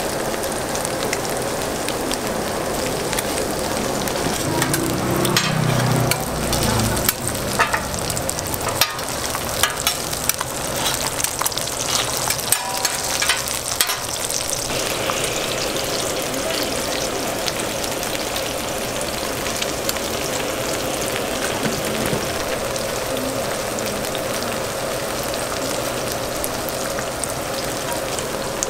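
Meat patties and eggs sizzling in oil on a flat-top griddle, a steady crackling hiss. Between about five and fourteen seconds in, scattered clicks and knocks from cooking utensils sound over it.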